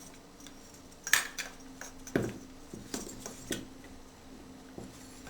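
Small shower-valve parts and tools being handled on a hard surface: a series of short clinks and knocks, about eight irregular taps, the sharpest a little over a second in.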